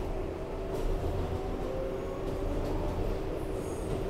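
Inside an R188 subway car running between stations: steady rumble of the wheels on the rails, with a steady hum and a fainter whine slowly rising in pitch from the car's propulsion.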